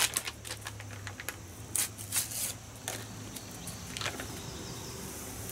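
Seasoning-mix packets crinkling and crackling as they are handled, torn open and shaken out into a measuring cup: a few sharp crackles in the first three seconds and one more about four seconds in.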